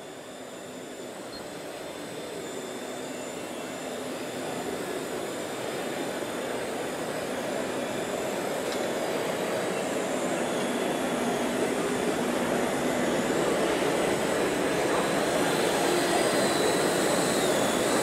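Thin electric whine of radio-controlled scale construction models, the motors and hydraulic pumps of a dump truck and excavator, stepping in pitch a few times, over a steady hall background haze. It grows steadily louder.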